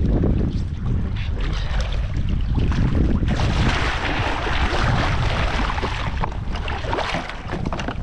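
Wind buffeting the microphone on a sea kayak, with water sloshing and scattered sharp knocks; a broader rush of splashing noise swells about three seconds in and eases off again around six seconds.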